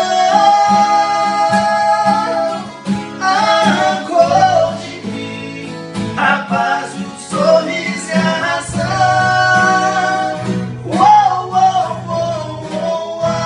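Two steel-string acoustic guitars strummed while two men sing together in harmony, holding long notes near the start and again about two-thirds of the way through.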